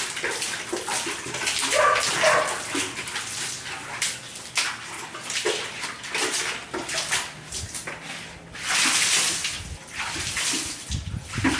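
Water poured from a plastic bucket, splashing and running over a tiled floor and a potted plant in uneven surges. A dog yelps a few short times.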